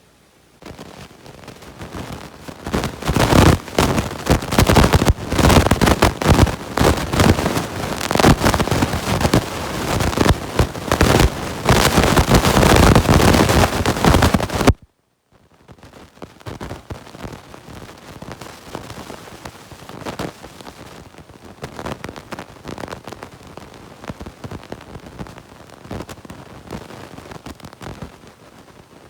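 Dense, rapid scraping and crackling, loud for about fourteen seconds. It breaks off suddenly, then goes on much quieter.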